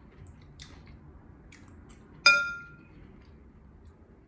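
A metal fork strikes a ceramic bowl about two seconds in: one sharp clink that rings briefly. A few faint taps come before it.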